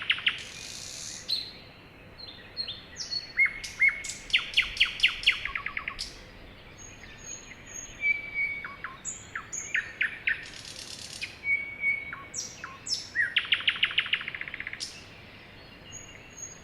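Songbirds singing: a fast trill of a dozen or so clipped notes repeats twice, about 4 and 13 seconds in, with short whistles and high chirps from other birds in between.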